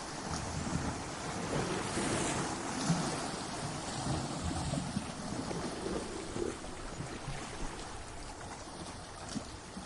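Ocean waves breaking against rocks: a rushing wash of surf that swells about two seconds in and then slowly ebbs away, with small splashes scattered through it.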